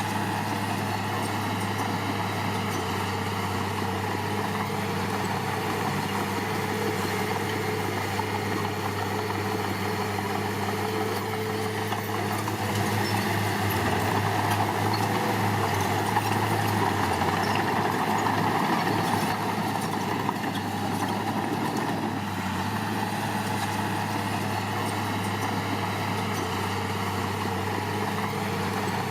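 Heavy diesel engine of construction machinery running steadily, working harder and louder for several seconds in the middle before settling back.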